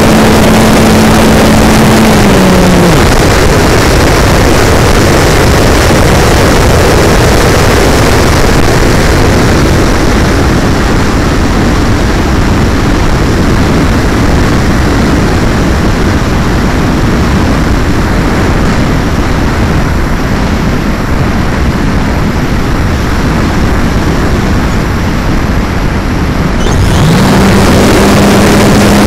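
Onboard audio from a Plasma 2 electric hotliner: the motor and propeller run with a steady hum, cut out about two seconds in and wind down, leaving a loud rush of airflow over the airframe as it glides with the motor off. Near the end the motor spins back up with a rising whine and settles into its steady hum again.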